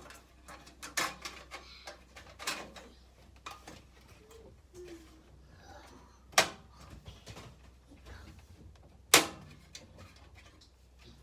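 A metal PC I/O shield being pressed into the case's rear opening: light handling clicks, then two sharp snaps about three seconds apart as it clips in on each side.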